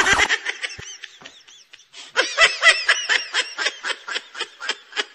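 A short burst of noise, then rapid, high-pitched staccato laughter, a comedy laughing sound effect played after the punchline.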